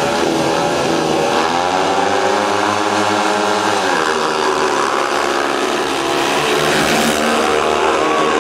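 Speedway motorcycles' 500 cc single-cylinder methanol engines racing. The engine note climbs about a second and a half in, holds, then drops away around four seconds, as the riders open up and then shut off the throttle, with several bikes overlapping later.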